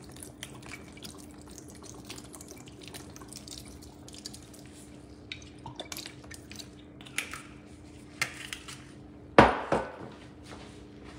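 Balsamic vinegar drizzled from a bottle into a stainless steel mixing bowl, with many small drips and ticks, then a loud double knock about nine seconds in.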